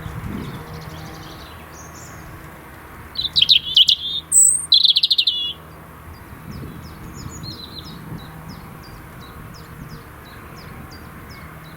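Wild songbirds singing. A loud, fast song phrase of about two seconds starts roughly three seconds in, and another bird repeats short high notes, about two to three a second, through the second half.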